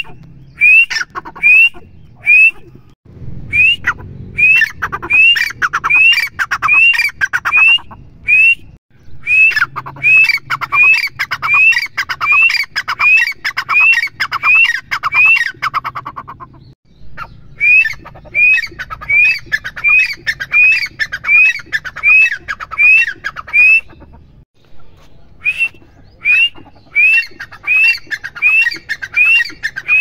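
Grey francolin (teetar) calling: a loud, ringing series of short upward-hooked notes, about two a second, in four long bouts broken by short pauses.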